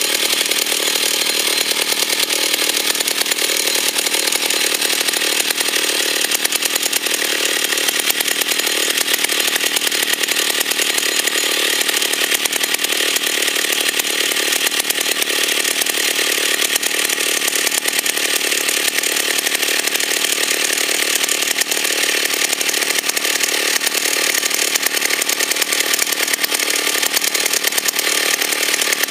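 1978 Stihl 08 S chainsaw's single-cylinder two-stroke engine idling steadily on its own, with no throttle given, warming up after a cold start.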